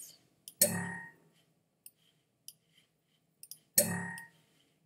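Computer mouse clicking as folders are dragged between Finder windows. Twice, about three seconds apart, a louder short sound with a sharp start dies away within about a second.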